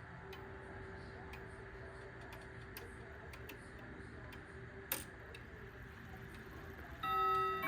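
Grandfather clock's Hermle-made Urgos movement ticking steadily, with one sharper click about five seconds in. Near the end its hammers start striking the chime rods, beginning a chime tune with several ringing tones.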